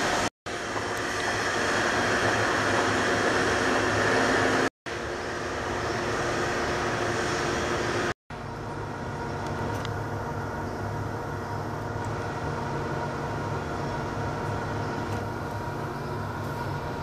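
Steady mechanical drone and low rumble of running machinery at a railway station, with several steady tones in it. It drops out abruptly three times, and is quieter after the last break.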